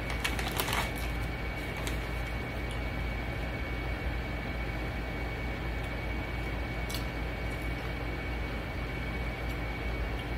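A potato chip bag crinkles for about a second, then a steady low hum of room noise with a couple of faint clicks as chips are eaten.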